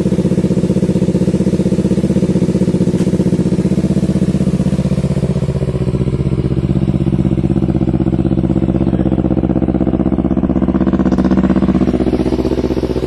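Kawasaki Z250 motorcycle engine running at idle through a Leovince GP Corsa carbon short aftermarket exhaust, a steady exhaust note that wavers slightly about midway and again near the end.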